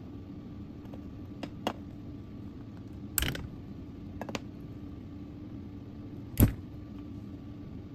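Cylindrical lithium cells joined by spot-welded nickel strip being handled and pried apart: a few light clicks, a sharper snap about three seconds in and a heavier knock about six and a half seconds in, over a low steady hum.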